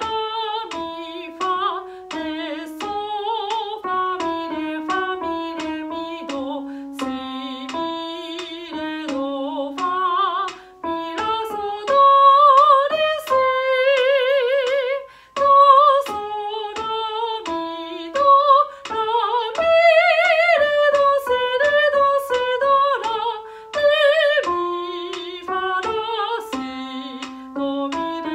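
A soprano sings a solfège exercise in fixed-do note names, in slow three-two time, with vibrato on the longer held notes. She accompanies herself on a Korg digital piano.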